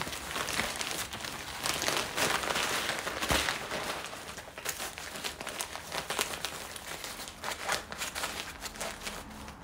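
Sego gele headwrap fabric rustling and crinkling as it is pulled and gathered around the head. The sound is loudest about two to three seconds in, then thins to lighter, scattered crinkles.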